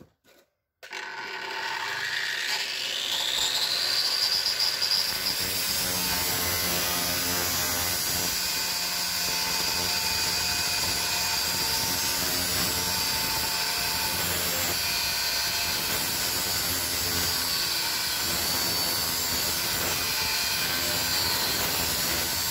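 Angle grinder starting about a second in, its whine rising as the disc spins up, then running steadily while grinding into the edge of a thick steel shear blade held in a vise.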